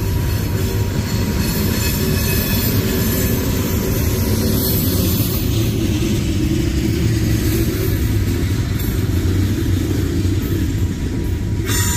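Freight cars of a CSX manifest train rolling past: a steady rumble of steel wheels on the rails. A high-pitched wheel squeal starts just before the end.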